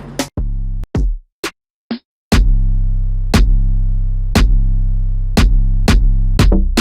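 Electronic beat demo from a sample pack: a few scattered percussion hits and a brief break, then a deep sustained bass note held under sharp drum-machine hits about once a second.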